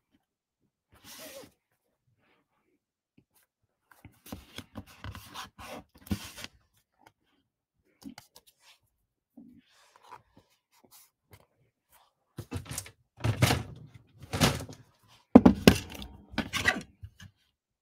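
Cardstock being handled on a work mat with soft rustles and clicks, then a small paper trimmer being set down and worked, giving several loud knocks and scrapes over the last five seconds.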